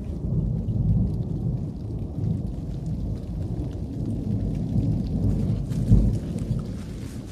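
Low, uneven rumbling noise, typical of wind buffeting the microphone, rising and falling throughout with a stronger gust about six seconds in and a few faint ticks.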